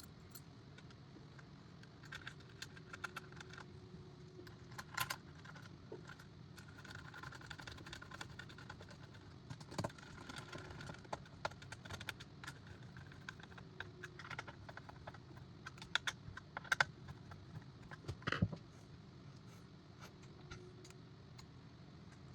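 Faint, scattered clicks and clinks of small metal parts and a screwdriver as metal CPU-cooler mounting brackets are screwed onto a motherboard, with a few sharper clinks in the second half.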